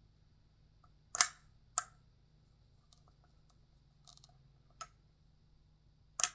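Sharp plastic clicks from a vintage Battle Armor Skeletor action figure's mechanism being worked by hand: four distinct clicks spaced a second or more apart, with a few faint ticks between them. The mechanism is working again after being cleaned.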